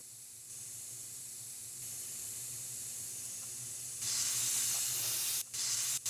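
Airbrush spraying acetone and air through its nozzle to flush out dried acrylic paint. A steady hiss grows louder in steps, then near the end cuts out and restarts a few times.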